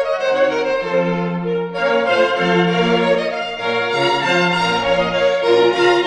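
Background music on bowed strings, a slow melody of held notes that change about once a second.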